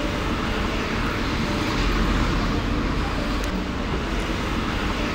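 City street traffic noise: a steady wash of passing cars.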